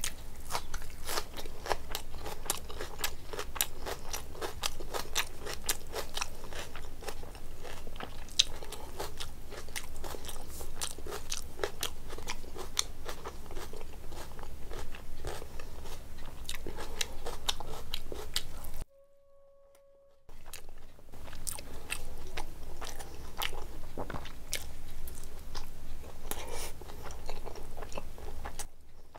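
Close-up eating sounds: a person crunching raw onion and chewing a mouthful of food, with rapid crackly crunches and wet chewing. About 19 seconds in the sound drops out to near silence for about a second and a half, then the chewing resumes.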